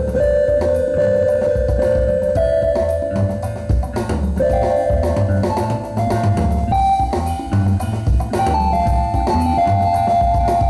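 Band music: a drum kit beat with bass under a melody of long held notes that steps upward in pitch, rising about two seconds in, about four and a half seconds in, and again near the end.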